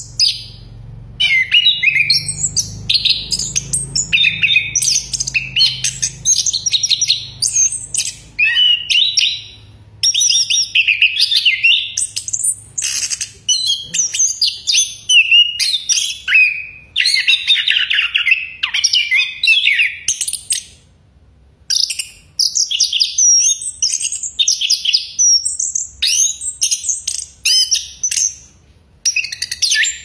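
Chestnut-capped thrush (anis kembang, Geokichla interpres) singing loudly: a near-continuous run of rapid, varied whistled phrases and chirps, broken by brief pauses about a third of the way in, about two-thirds of the way in and near the end.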